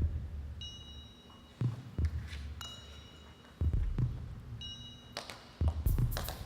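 A heartbeat-like soundtrack effect: pairs of deep thumps about every two seconds, with short high chiming tones ringing between them.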